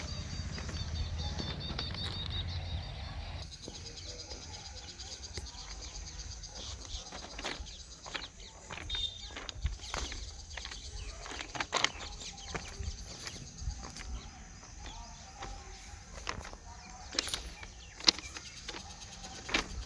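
Footsteps crunching irregularly on loose stone railway ballast, over a steady high-pitched drone.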